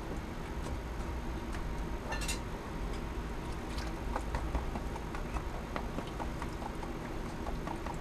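Light clicks and ticks of gravel and concentrates shifting in a plastic gold pan of water as it is worked, one sharper click about two seconds in and a run of quick ticks from about halfway, over a steady low hum.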